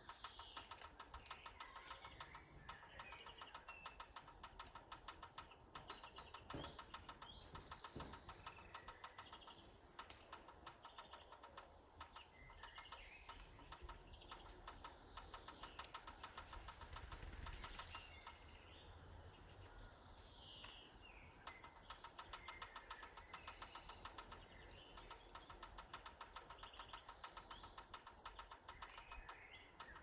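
Faint small songbirds chirping and twittering, short high calls scattered all through, over a fast, even ticking. A low rumble swells briefly just past halfway.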